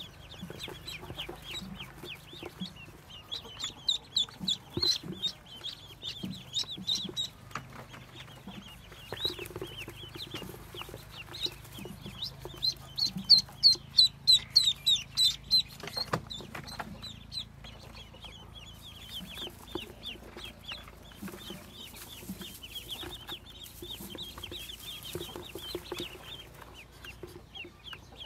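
Muscovy ducklings peeping: many quick, high chirps throughout, with a loud, fast run of peeps about halfway through. A single sharp knock follows just after that run.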